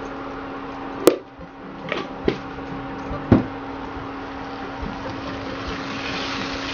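Induction cooktop humming steadily under a pan of prawns, with a few sharp knocks and taps of a steel spoon and utensils in the first half, the loudest about a second in. Near the end, hissing and scraping as a silicone spatula stirs the prawns in the hot pan.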